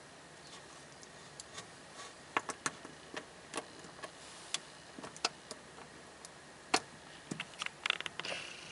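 Irregular sharp clicks and light taps from a stainless steel dive watch and its link bracelet being handled between fingers and set down, with a quick run of clicks near the end.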